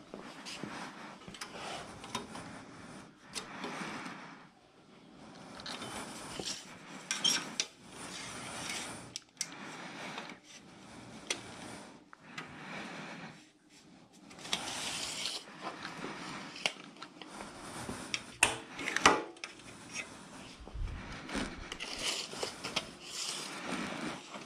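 Handling noise while a tape measure is run along an aluminium cart frame: rustling and shuffling with scattered light metal clinks and taps, the sharpest cluster about 19 seconds in.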